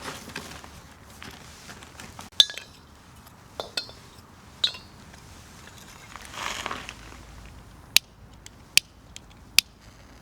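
Metal objects clinking together a few times with a short ring after each, then a brief rustle, and three sharp clicks near the end, about a second apart.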